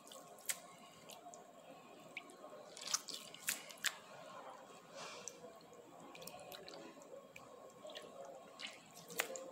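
Hands rubbing and swishing soaked chickpeas in a bowl of water to loosen their skins, with water dripping and splashing from the hands. It is faint, with scattered sharp drips, a few louder ones about three to four seconds in and again near the end.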